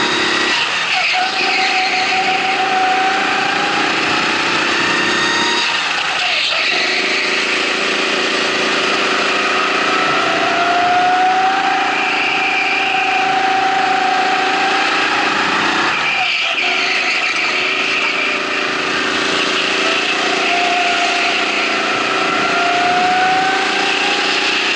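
Go-kart engine heard onboard while racing. It climbs slowly in pitch under acceleration and drops off sharply three times as the throttle is lifted for corners, then builds again.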